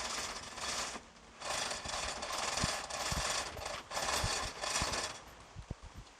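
A metal hand tool worked in about eight short, rasping strokes of roughly half a second each, with a brief pause after the first two.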